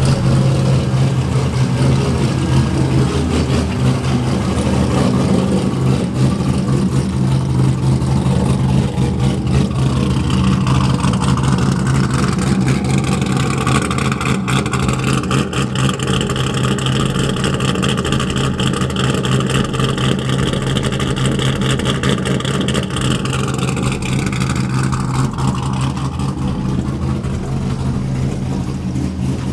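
Car engine running steadily, with a higher note that rises about twelve seconds in, holds, and drops away near twenty-five seconds in.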